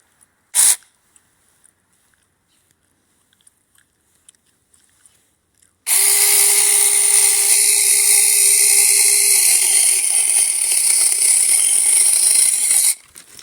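Battery-powered 6-inch mini chainsaw running and cutting a tree branch for about seven seconds, starting and stopping abruptly, with a steady motor whine over the high hiss of the chain. A single short burst comes about half a second in.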